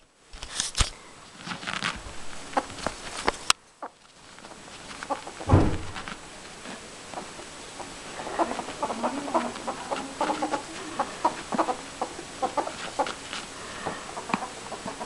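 Domestic ferret dooking while it is tickled: a quick run of soft clucking chuckles, thickest in the second half, the playful 'giggle' of an excited ferret. A loud thump comes about five and a half seconds in.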